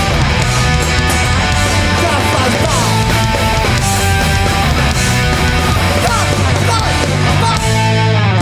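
Hardcore punk band playing live, with distorted electric guitars, bass and drums at full volume and guitar notes sliding in pitch several times.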